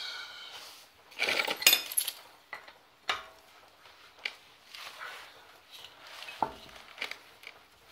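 Metal lug bolts clinking and rattling as they are handled and threaded by hand into a car's alloy wheel hub: a quick flurry of clinks about a second in, then single clicks every second or so.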